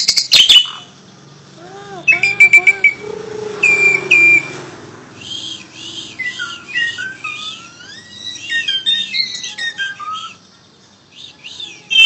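Asian pied starling (jalak suren) singing a loud, varied song. It opens with rapid clicking rattles and short whistled notes, then runs into warbling notes that glide up and down, with a brief pause near the end.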